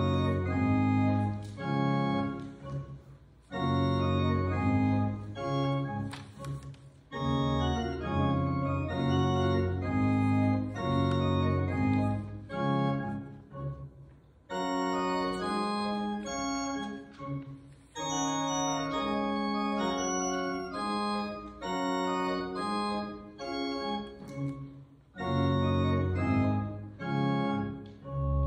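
Church organ playing a slow solo piece of held chords, phrase by phrase, with short breaks between phrases.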